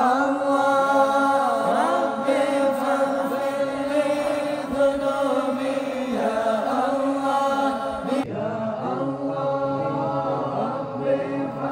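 Male voices chanting an Arabic devotional song (sholawat) in long, ornamented notes that curl up and down in pitch. About eight seconds in the chant cuts abruptly to a different, lower passage.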